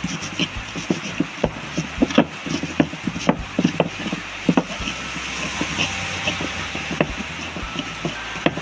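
Stone pestle grinding and knocking against a chipped stone cobek mortar, crushing a wet paste of chilies, shrimp paste and garlic, with irregular knocks about two to three a second. A steady hiss of heavy rain runs behind it.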